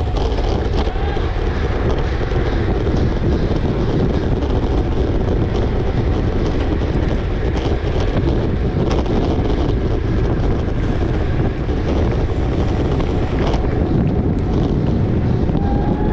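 Steady wind rush buffeting the microphone of a camera on a racing bicycle moving at race speed, with a few sharp clicks.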